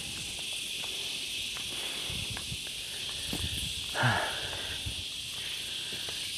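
Steady high-pitched chorus of insects droning, with the soft footsteps and breathing of someone walking uphill and a short louder breath about four seconds in.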